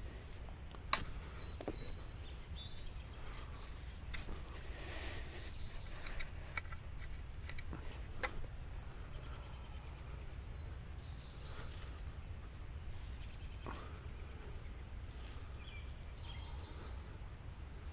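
Outdoor garden handwork: scattered clicks and knocks from tools or hands working in the soil, the sharpest about a second in, over a steady low rumble, with faint bird chirps now and then.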